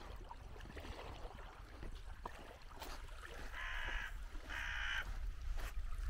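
A crow cawing twice in quick succession, about four seconds in, over low wind rumble on the microphone.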